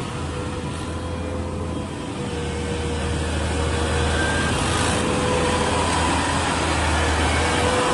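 Inari RG combine harvester running in a muddy field: a steady engine and machinery noise with a high, even whine, growing louder about two to three seconds in.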